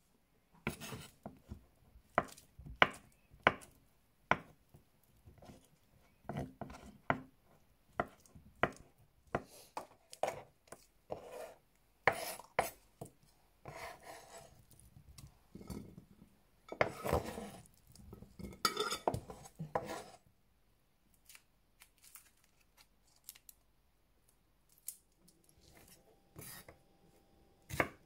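Kitchen knife cutting tofu into cubes on a wooden chopping board: irregular knocks of the blade against the board, with a few longer, noisier stretches between them. It goes quiet for a few seconds near the end, then quicker, steadier chopping starts.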